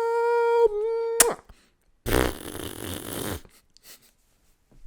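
A held hummed note that breaks off with a quick upward slide about a second in, followed by a fart noise about a second and a half long with a rapid low flutter, made as a foley sound for an animated character.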